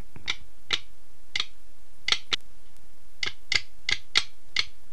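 Typewriter-style key strikes, about ten sharp clicks at uneven intervals over a steady hiss, one click for each letter of a title typing onto the screen.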